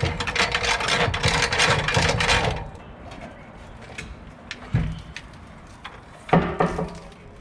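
Rapid mechanical clicking and rattling for about two and a half seconds, then scattered clicks and knocks, as a heavy LPG gas tank is lowered on a jack from under a 4WD.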